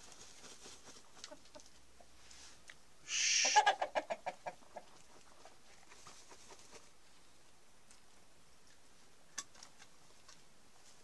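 Chickens clucking softly. About three seconds in, a loud squawk breaks into a quick run of about eight clucks that die away within a second and a half. There is a single short click about nine seconds in.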